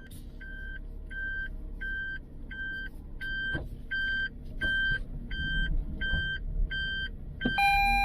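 Car's in-cabin warning beeps repeating about one and a half times a second over the engine running. Near the end they give way to a different chime of several tones.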